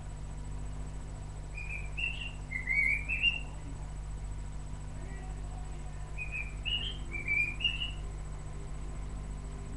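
Parrot chirping: two runs of about four short, rising chirps, a few seconds apart.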